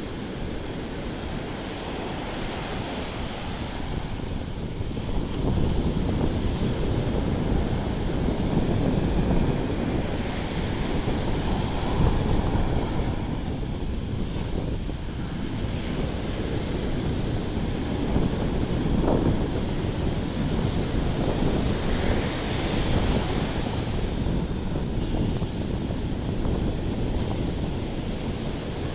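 Sea waves washing in on the shore, with wind rumbling on the microphone; the surf grows louder about five seconds in.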